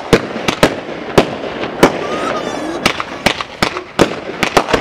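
Aerial fireworks bursting overhead: a rapid, irregular run of about a dozen sharp bangs and pops, with crackling between them.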